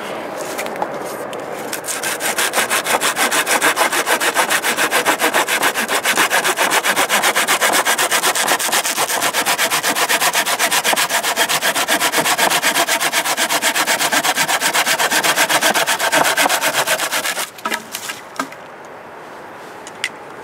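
Gardenic folding pruning saw with large teeth cutting through a dead branch in quick, even back-and-forth strokes. The sawing starts about two seconds in and stops suddenly near the end as the branch is cut through, followed by a few light knocks.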